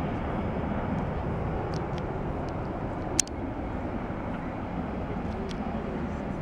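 Twin-engine jet airliner climbing away after takeoff: a steady, low rumble of its engines, slowly fading. A single sharp click about three seconds in.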